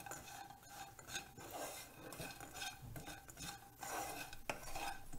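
Wooden spatula stirring and tossing paneer cubes and mixed vegetables in a non-stick frying pan, in uneven strokes with small knocks against the pan.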